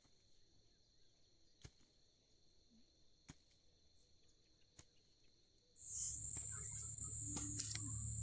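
Hand hoe striking the soil, a sharp tick about every second and a half, over a faint steady chirring of insects. About six seconds in, a much louder steady low hum with a high whine cuts in abruptly.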